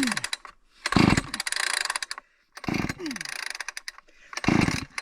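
Two-stroke gas chainsaw being pull-started with the choke on: three hard pulls on the starter cord, each turning the engine over in a burst of about a second, spaced about a second and a half apart. The engine does not catch.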